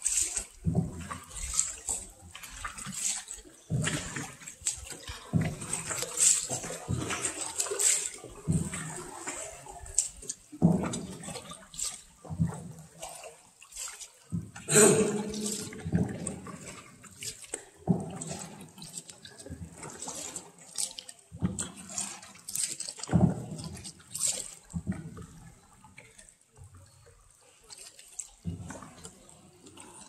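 Water on an underground river splashing and dripping in quick, irregular splashes.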